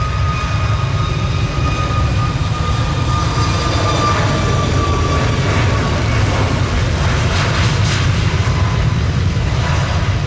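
Jet airliner engines running: a steady deep rumble under a high whine that slowly falls in pitch over the first several seconds.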